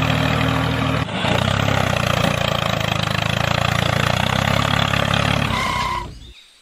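Tractor engine running steadily, with a sudden break in the sound about a second in; it fades out near the end.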